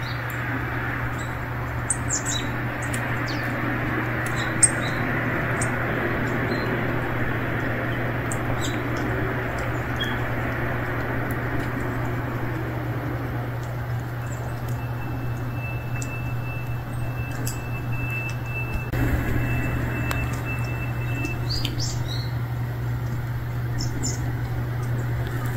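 Small birds chirping now and then over a steady low outdoor background hum. A thin steady high tone runs for several seconds midway.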